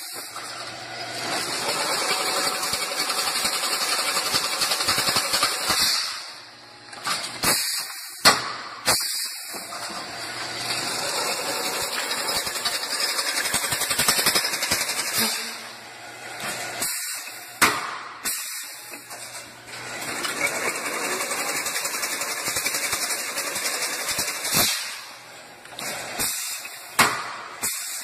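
Chain-link fence weaving machine running: a dense mechanical rattle and hiss that swells and drops every few seconds as the wire spirals are formed and woven, with a few sharp metallic clanks.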